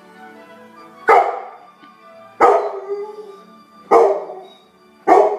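A dog barking along to music from a television: four loud barks about a second and a half apart, each trailing off, with the music playing underneath.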